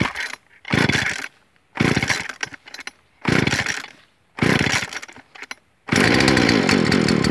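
Husqvarna two-stroke chainsaw being pull-started cold on full choke: about six short cranking bursts as the starter cord is yanked. On the last pull, about six seconds in, the engine fires for a second or two and dies, the first sign of starting that tells it is time to push the choke in.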